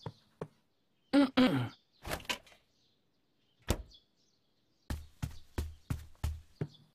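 Cartoon sound effects of footsteps at an even pace, with a couple of loud door knocks and rattles about a second in. A single sharp click follows a little later, then more footsteps walking off. The door is shut quietly, not slammed.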